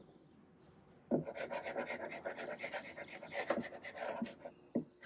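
Small hammer knocking quickly at the wooden carcass of an old credenza: a fast run of light, sharp knocks and scrapes on wood starting about a second in, then one more knock near the end.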